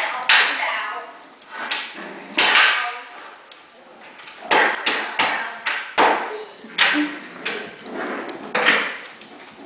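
Havanese puppies scuffling and tumbling on a hardwood floor among plush toys: a run of irregular short thumps and rustles.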